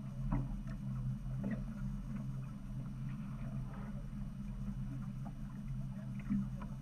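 Boat's engine idling with a steady low hum, with scattered faint knocks over it.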